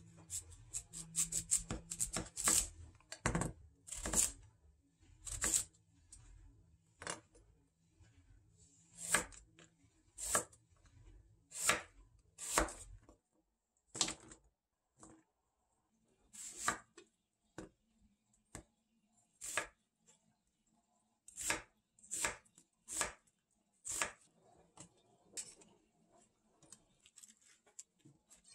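Chef's knife chopping a white radish on a wooden cutting board, a run of sharp irregular strikes on the wood. The strikes come thick and fast for the first half, pause briefly, then come again more spaced out.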